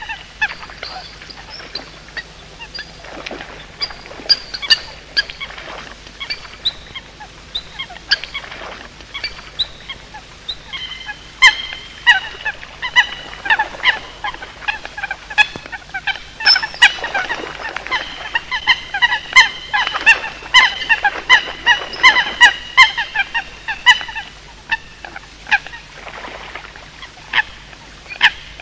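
Coots calling: a busy string of short, sharp calls, coming in quick clusters with brief gaps, densest in the second half.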